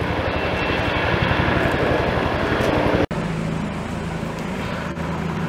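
Helicopter flying overhead, its rotor beating in fast low pulses; an abrupt break about three seconds in, after which it runs as a steadier hum with a low tone.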